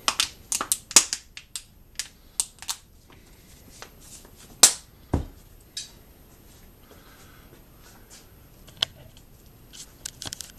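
A run of sharp snaps and clicks as rubber balloons are stretched over the mouths of plastic soda bottles. The loudest snap comes about four and a half seconds in, followed by a few scattered clicks.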